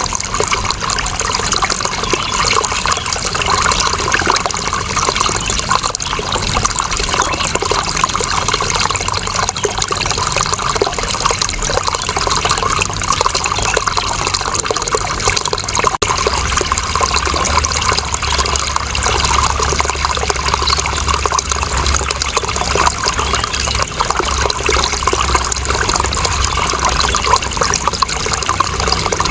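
Water flowing and trickling in a steady, even rush, with a low rumble joining about halfway through.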